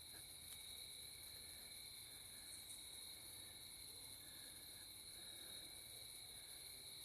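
Faint steady chorus of night insects such as crickets, with continuous high-pitched trilling. Faint short notes come and go beneath it a few times.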